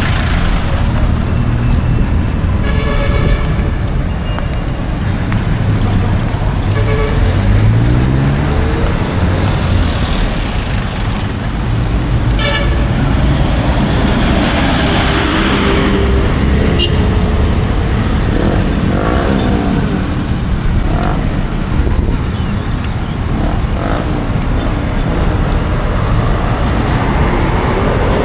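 Heavy street traffic: a steady rumble of passing engines and tyres, with short horn toots a few times and one engine revving up about a quarter of the way in.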